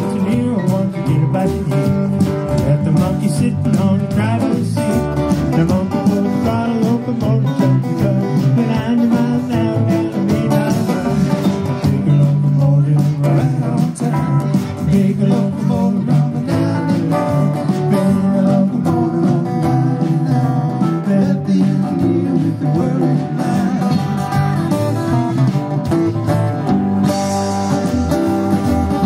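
Live band playing a folk-blues song: strummed acoustic guitar over electric bass, with drums and keyboard, steady throughout.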